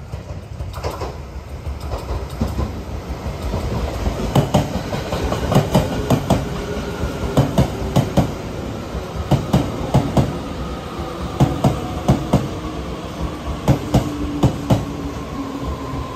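TRA TEMU1000 Taroko Express tilting electric multiple unit passing slowly: a rumble that builds over the first few seconds, then wheels clacking over rail joints in quick pairs and groups, with a faint steady whine underneath.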